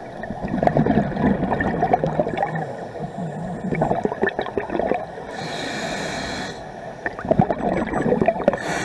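Scuba regulator breathing heard underwater. A long bubbling exhale comes first, then a short hissing inhale just past halfway, then another burst of exhaust bubbles near the end.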